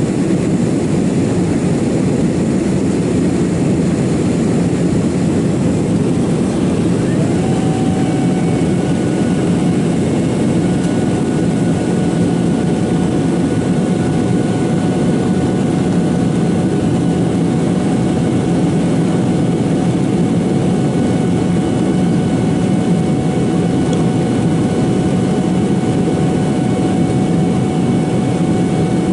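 Steady jet airliner cabin noise in flight just after takeoff: the low rush of engines and airflow heard from inside the passenger cabin. A steady high hum joins in about seven seconds in and holds.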